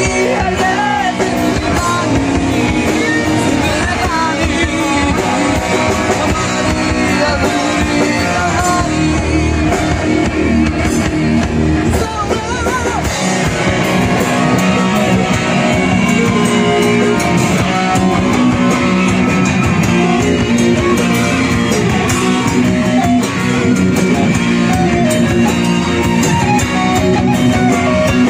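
Live rock band playing a Bollywood–Bengali rock mash-up: sung vocals over electric guitar, bass guitar, drum kit and keyboard.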